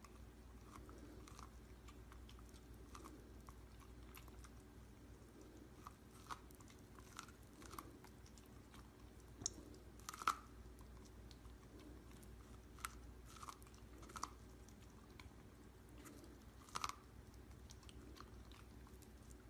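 A dog biting and chewing kernels off a corn cob held out by hand: faint, irregular crunches, with a couple of louder bites about halfway through and near the end.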